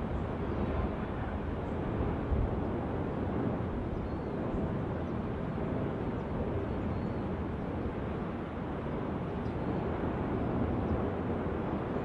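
Steady low rumble of an erupting lava fissure spattering lava and venting gas.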